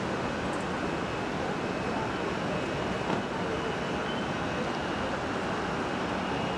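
Jet engines of a Boeing 737 landing, heard from a distance as a steady rushing noise with a faint high whine.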